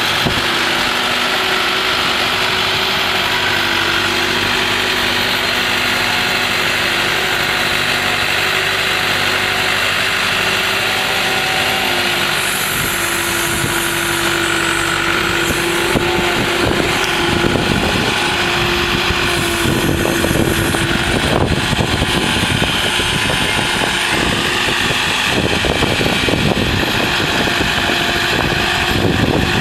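Skid-steer loader's engine running steadily with a constant whine over it; in the second half the sound grows rougher and noisier as the machine works.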